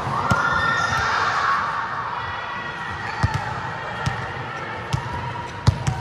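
Scattered sharp thuds of a volleyball being hit and bounced on the hall floor, several in the last three seconds, over a low background of players' voices.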